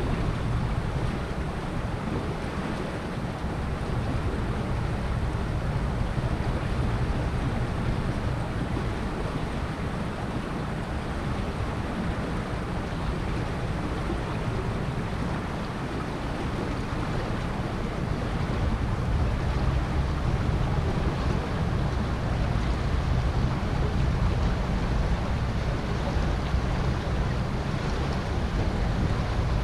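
Steady rush of flowing river water, with wind buffeting the microphone in a low rumble; a little louder in the second half.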